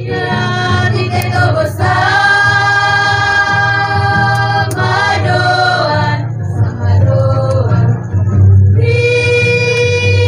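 A group of girls singing together unaccompanied in a traditional East Flores village song, holding long notes, with a softer stretch in the middle. A steady low hum runs underneath.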